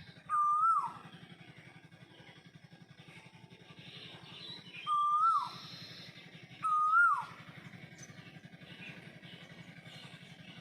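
A bird giving three short whistled calls, each a held note that drops sharply at the end: one near the start and two close together about five and seven seconds in. A steady low hum runs beneath.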